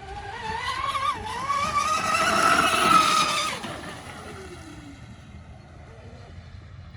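TFL Zonda RC catamaran's electric drive whining at speed as the boat passes: the whine climbs in pitch and loudness, is loudest about three seconds in, then drops in pitch and fades away along with the hull's hiss on the water.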